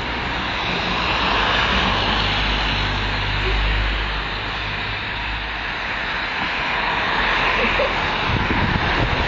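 Refuse lorry's diesel engine running, a steady low hum under a broad rushing noise; the low hum fades about halfway through.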